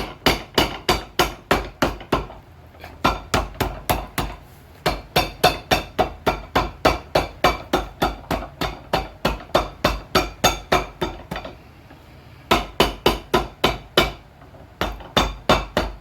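Shoemaker's hammer striking a new leather half sole on a shoe, in quick runs of sharp blows, about four or five a second, with brief pauses between runs.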